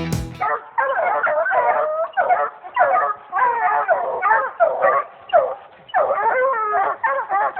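A pack of hunting hounds baying and barking, several voices overlapping in a steady, unbroken chorus.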